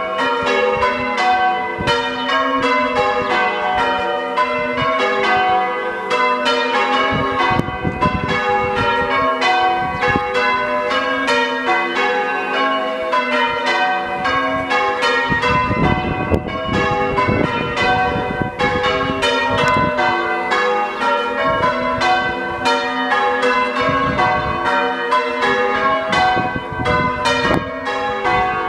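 The six bells of a church tower ringing, strike after strike in a continuous, rapid sequence of overlapping tones, as in English change ringing; to the uploader the ring sounds out of tune or in a minor key. A low rumble comes and goes underneath, strongest about half way through.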